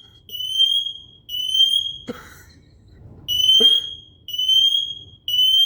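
Smoke alarm sounding in the three-beep fire-alarm pattern: three shrill beeps of just under a second each, a short pause, then three more.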